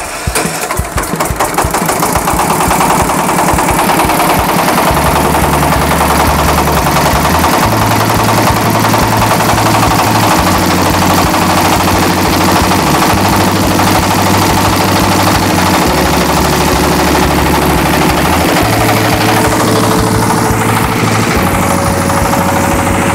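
Single-cylinder diesel engine of a rice milling machine firing up right at the start and settling within a couple of seconds into a steady run with a fast, even chugging beat.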